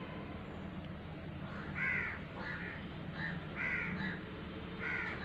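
A bird calling in short, repeated calls, about five of them starting about two seconds in, over a steady low hum.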